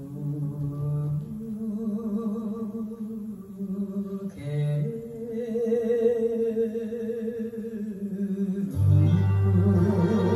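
Music with a long-held, wavering melody line in phrases. A fuller, deeper accompaniment joins about nine seconds in.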